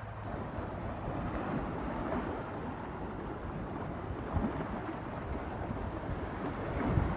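Atlantic Ocean surf, waves breaking and washing in on the incoming high tide, with wind rumbling on the microphone.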